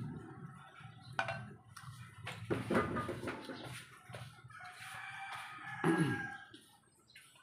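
A rooster crowing in the background: one long call about halfway through that drops in pitch at its end. A short, sharp knock comes a couple of seconds before it.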